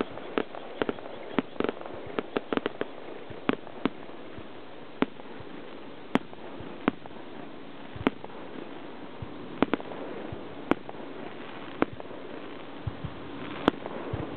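Senrin ("thousand-ring") aerial firework shells bursting: a quick run of sharp pops in the first few seconds, then single bangs every second or so.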